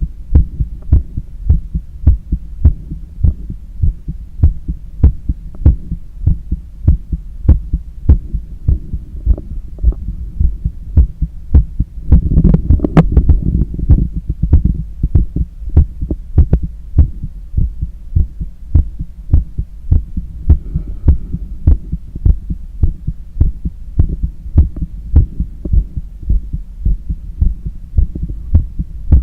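Heartbeat heard through a stethoscope on the chest of a runner cooling down after a long run: a steady rhythm of beats, a little over one a second, over a low rumble. About twelve seconds in, a louder rustling noise rises over the beats for a couple of seconds.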